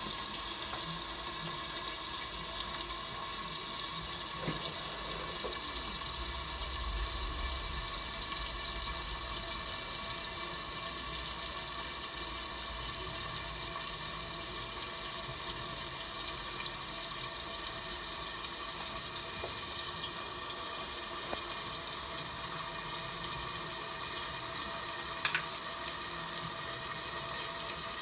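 Chicken thighs sizzling steadily in a covered frying pan over a gas flame, heard as an even hiss under the lid. A single short tick near the end.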